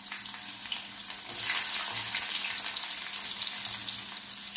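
Sliced onions sizzling in hot oil in a steel kadai; the sizzle grows louder about a second and a half in.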